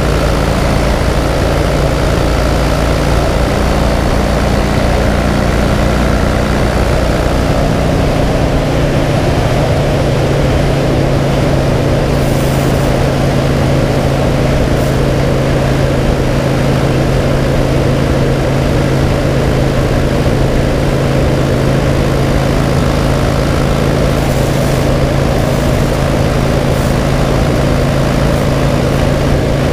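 2009 Harley-Davidson Cross Bones' air-cooled Twin Cam 96 V-twin running steadily at cruising speed, heard over the rush of wind and road noise. The engine note shifts about eight seconds in.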